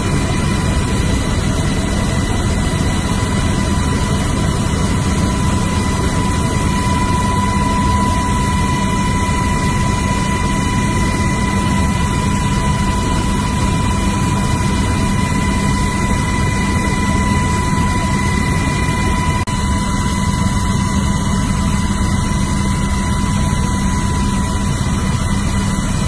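Steady, loud aircraft engine noise heard from inside the cabin during a low flight, with a constant whine running through it.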